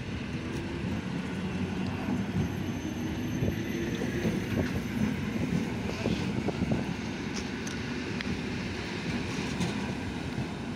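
Koleje Mazowieckie suburban electric multiple unit running past along the platform: a steady rumble of wheels and cars with occasional faint clicks.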